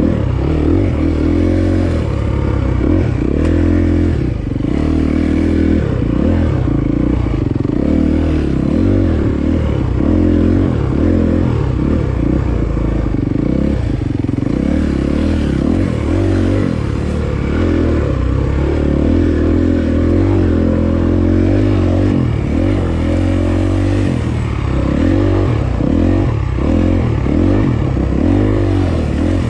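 Dirt bike engine running hard on a trail ride, its pitch rising and falling constantly as the throttle opens and closes.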